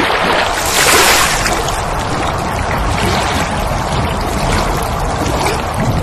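Transition sound effect: a steady rushing noise with no tune in it, loudest in the first second and then even.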